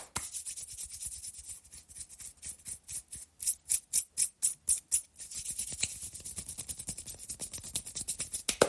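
Hands brushing off, palm sweeping against palm in rapid, dry swishing strokes, several a second, with most of the sound in the high hiss.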